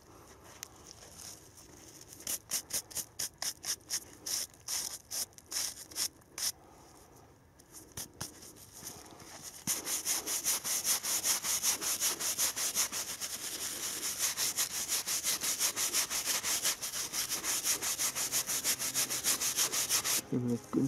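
Gloved hand rubbing caked soil and rust off a corroded, freshly dug-up pistol: a string of separate scraping strokes, then from about ten seconds in a fast, steady rubbing, about five strokes a second, that stops just before the end.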